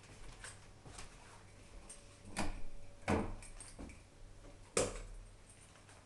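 Door being opened and handled: a few sharp knocks and clicks, the loudest three spread over about two and a half seconds in the middle.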